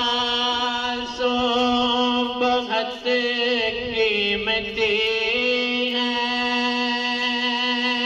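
A man singing a naat through a microphone and loudspeaker, drawing out one long note with slow bends and ornaments in pitch.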